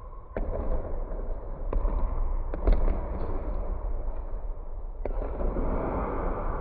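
Basketballs thudding in an echoing gym: about five sharp, separate impacts at uneven spacing, over a steady low rumble.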